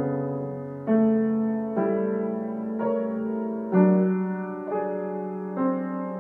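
Solo piano playing slow, gentle chords, a new chord struck about once a second and left to ring before the next.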